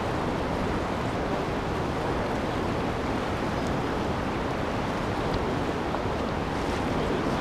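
Steady rushing noise of fast river current and wind buffeting the microphone.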